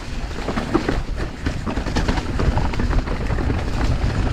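Mountain bike riding down a muddy, rooty trail: a steady low rumble of tyres and wind, with many quick clicks and rattles from the bike jolting over rough ground.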